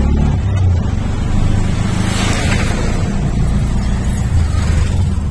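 Steady low engine and road drone heard inside a moving car, with a brief rushing swell about two seconds in.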